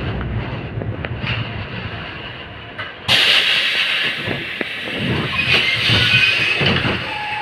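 LVS-86K tram slowing and coming to a stop, its low running noise fading, then a sudden loud hiss setting in about three seconds in and carrying on, with a few low knocks.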